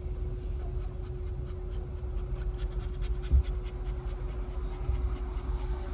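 A dog panting fast, several quick breaths a second, over the steady low hum of a car's engine heard inside the cabin, with one thump a little past the middle.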